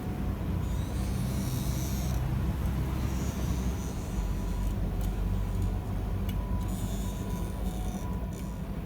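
Forge running with a steady low rumble and some hiss, with no hammer blows standing out.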